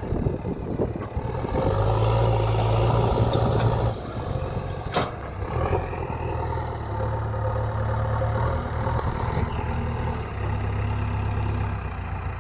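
JCB 3DX backhoe loader's diesel engine running, growing louder in three stretches as it works, with one sharp knock about five seconds in.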